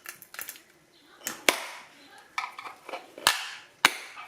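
Hands working apart a car engine control unit's metal and plastic housing: a few sharp clicks and knocks with light clatter between, the loudest about a second and a half in and again a little past three seconds.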